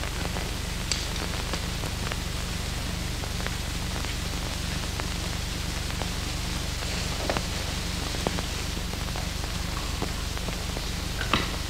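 Steady hiss and low hum of an old film soundtrack, with a few faint clicks and pops, one a little louder near the end.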